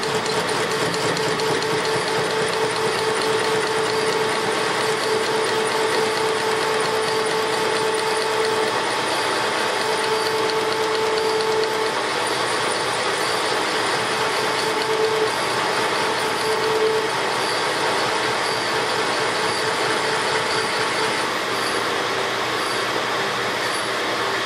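Metal lathe running and turning a BMW motorcycle connecting rod, the cutting tool taking material off the rod to lighten it. A steady pitched tone rides over the machining noise and breaks off and returns several times through the first two-thirds.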